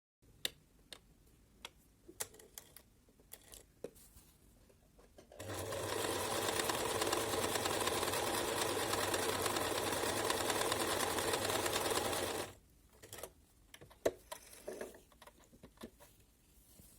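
Domestic sewing machine stitching at a steady speed for about seven seconds, starting about five seconds in and stopping abruptly. Scattered light clicks and taps come before and after it.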